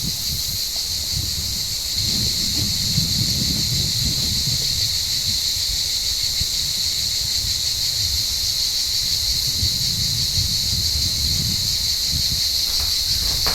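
Cicadas singing in a steady, unbroken chorus, with a low, uneven rumble underneath.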